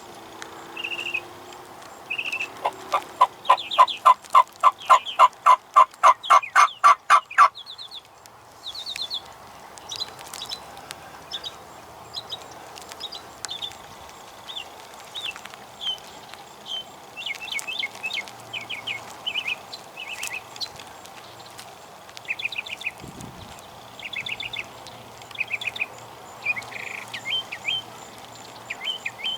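Turkey yelping: a quick, even run of about a dozen loud yelps, about three a second, that stops a few seconds in. After it come scattered short, high bird calls.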